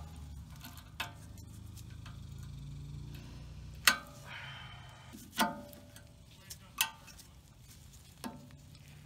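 Sharp metal clicks and clinks of vise grips and snap ring pliers on a steel snap ring as it is worked into its groove in a pressed-in ball-joint adapter. There are five separate clicks, the loudest about four seconds in.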